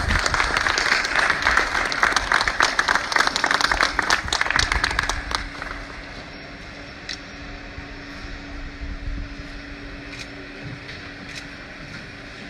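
A small crowd applauding, dying away after about five seconds. A steady low hum continues, with a few scattered claps.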